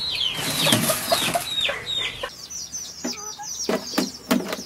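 Repeated short, high chirping calls, each falling in pitch, over a rustling noise in the first half. A few sharp knocks near the end.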